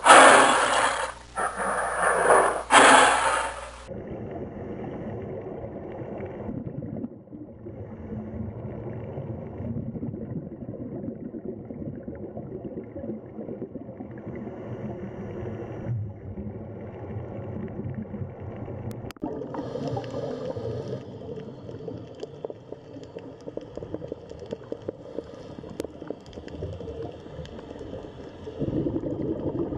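Tiger roaring in about three loud snarling bursts. After about four seconds this gives way to underwater sound: steady gurgling water noise with fine crackling and scraping, and a hiss joining about two-thirds of the way through.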